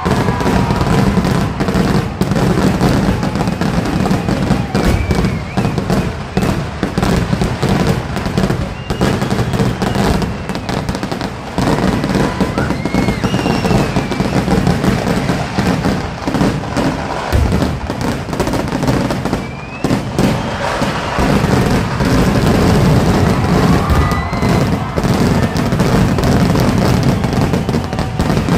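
A large fireworks display going off in a continuous, dense barrage of bangs and crackling, with no let-up.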